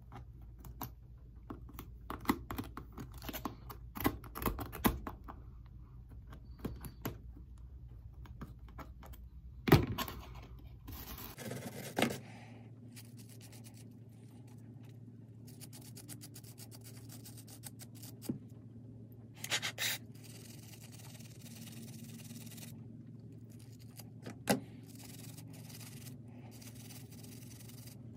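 Small hand tools working a corroded metal model-train truck. First a knife scrapes out corrosion in a busy run of fine scrapes and clicks. After about eleven seconds a small wire brush scrubs it in sparser scratchy strokes. A few sharp knocks come in between, the loudest about ten seconds in.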